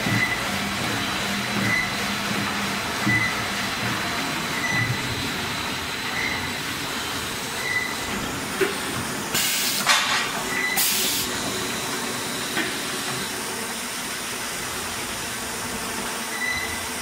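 Veneer peeling line running: steady machine noise with hiss, a short high squeak repeating about every second and a half through the first half, and two short loud blasts of hiss around the middle.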